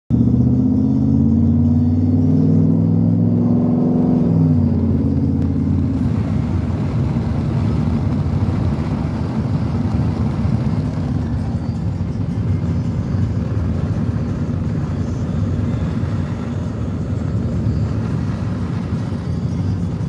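Ford 4x4 pickup's engine and exhaust heard from inside the cab while driving: a steady droning note that drops in pitch about four seconds in, then a steady low rumble mixed with road noise.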